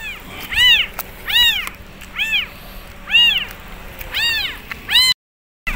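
Young kitten meowing over and over: about seven high cries, each rising then falling in pitch, roughly one every three-quarters of a second. It is a lone abandoned kitten calling for its mother.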